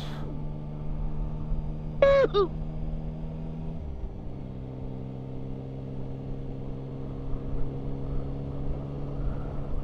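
Onboard sound of a Yamaha Tracer 9 GT's 890 cc inline-three engine running steadily on the move, with a step down in pitch about four seconds in, then steady again. A short voice sound comes about two seconds in.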